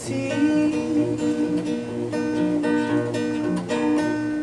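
Solo acoustic guitar strummed and picked, an instrumental passage with no singing: the closing bars of a song.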